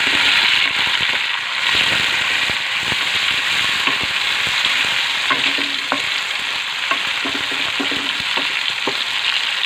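Sliced onions, chopped tomatoes and green chillies sizzling in hot oil in a metal karahi as they are stirred. A steady sizzle runs throughout, with scattered sharp clicks, more of them in the second half.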